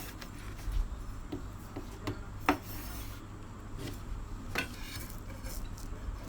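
Knife cutting through a slab of sugar-bound peanut snack as the caramelised sugar sets hard: scraping and rubbing, broken by a few sharp cracks or knocks, the loudest about two and a half seconds in and again a couple of seconds later.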